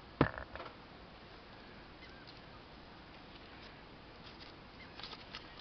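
A sharp knock just after the start, with a couple of smaller clicks right after it, then a few faint light clicks: small pocket items being handled and set down.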